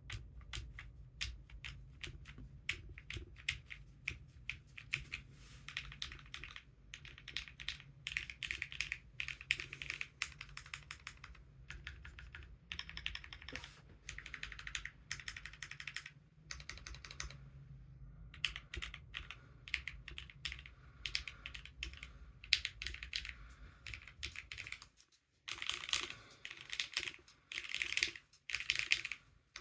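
Typing on an Akko Alice Pro Plus mechanical keyboard fitted with lubed Gateron Milky Yellow linear switches and PBT doubleshot keycaps: a fast, continuous clatter of keystrokes, with a brief pause about 25 seconds in.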